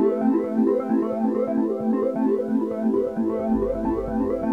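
Upbeat background music: a synthesizer keyboard melody of quick, even notes, with a low bass coming in near the end.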